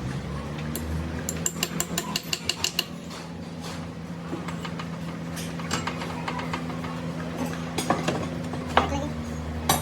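Metal parts and tools clinking and knocking, with a quick run of about ten clicks a second or so in, over a steady machine hum.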